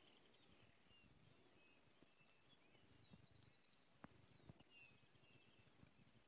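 Near silence: faint outdoor ambience with distant birds chirping now and then, and a few soft clicks about four seconds in.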